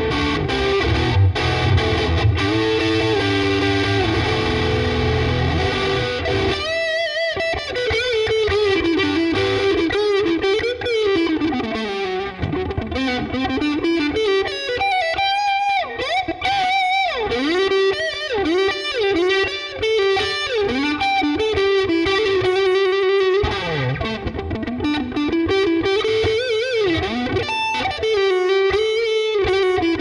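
Swing C1 Plus electric guitar played through heavy distortion on its neck humbucker. Sustained, bass-heavy chords for the first several seconds, then single-note lead lines with string bends and vibrato.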